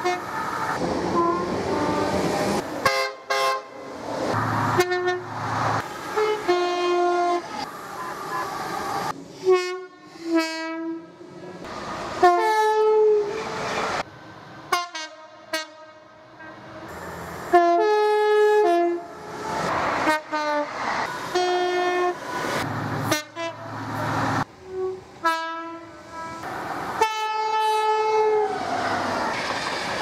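Train horns sounding a long run of short multi-tone blasts, the pitch changing from note to note, with the rumble of trains running through in between.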